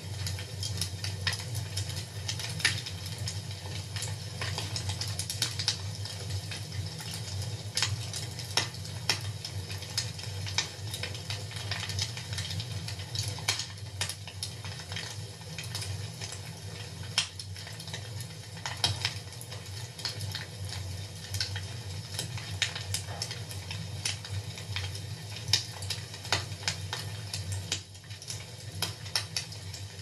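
Wood fire crackling in a fireplace: irregular sharp pops and snaps over a steady low rumble.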